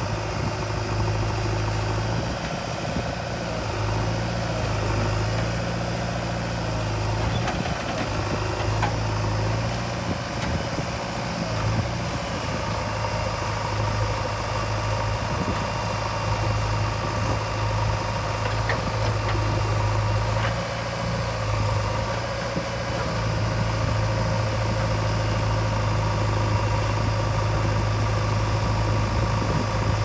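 Diesel engines of a JCB 3DX backhoe loader working its digging arm and a Mahindra tractor idling beside it: a steady low engine drone that swells and eases slightly as the backhoe works.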